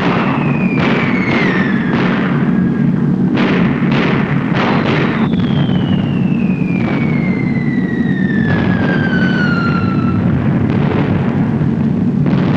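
Bombs whistling down in long falling tones, with a string of explosions, over a steady low rumble.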